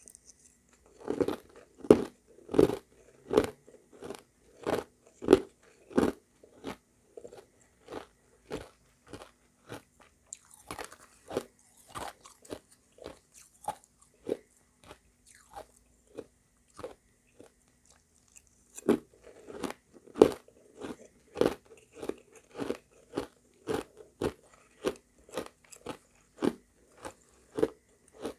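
A person chewing refrozen shaved ice mixed with crushed ice close to the microphone: a steady run of hard crunches, about one to two a second. The crunches are louder for the first several seconds and again in the last ten, softer in between.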